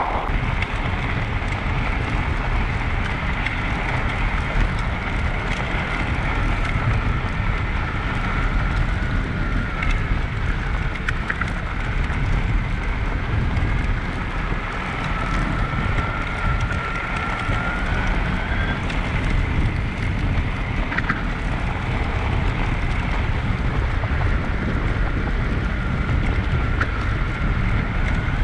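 Wind buffeting the microphone of a camera on an e-bike riding over packed snow, with the steady rumble of the tyres and a faint whine from the electric motor that rises gently in pitch about halfway through.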